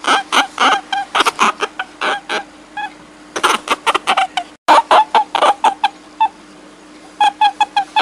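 Rapid series of short, pitched animal calls, several a second, coming in clusters with a brief break about four and a half seconds in; a faint steady hum runs beneath.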